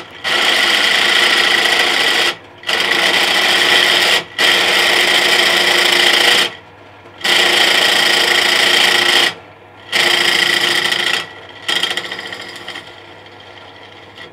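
Silverline 350W pillar drill boring through aluminium, the bit cutting with a loud, steady grinding noise. The cutting drops out for a moment about six times as the feed is eased off, while the motor keeps running. From about twelve seconds in the noise falls away.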